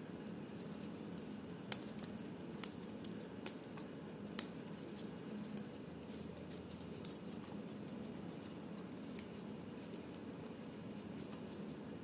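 Fresh basil being stripped by hand in nitrile gloves, leaves dropping into a stainless steel colander: faint crisp snaps and ticks, with a few sharper clicks about a second apart in the first half.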